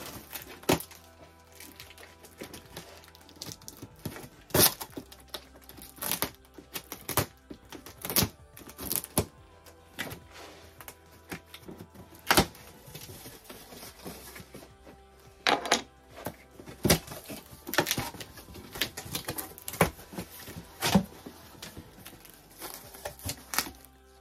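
A box and its contents being handled and unpacked: irregular clicks, knocks and cracks, some sharp and loud, over faint background music.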